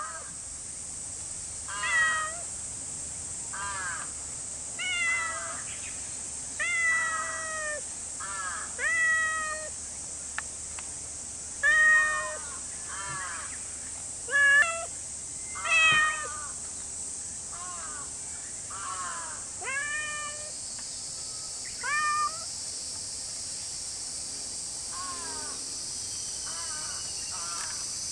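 A cat meowing over and over, about a dozen short calls that rise and fall in pitch, one every second or two, stopping about 22 seconds in. A steady high-pitched insect drone runs underneath.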